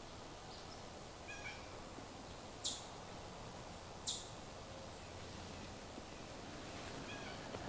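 Quiet woodland background with faint animal calls: a soft call about a second in, two short sharp high-pitched chips a second and a half apart, and another faint call near the end.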